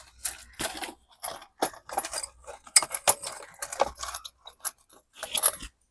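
Small metal parts and tools being handled on a workbench: an irregular string of short, sharp clinks and rattles.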